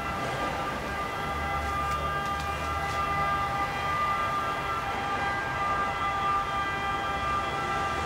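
A steady drone of several held tones sounding together as one unchanging chord, with a low rumble that swells and fades underneath.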